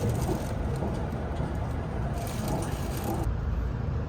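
Steady low rumble of the Kintetsu Aoniyoshi limited express heard inside the passenger cabin while the train is running, with faint background sounds on top; the high hiss drops away abruptly about three seconds in.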